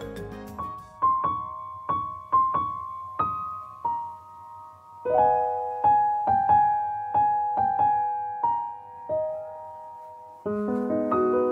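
Background music: slow solo piano, single notes struck one after another and left to ring out, growing into fuller, busier playing near the end.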